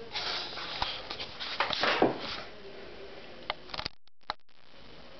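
Rustling and sharp clicks of a handheld camera being moved and reframed, loudest about two seconds in, with a brief cut-out in the sound about four seconds in.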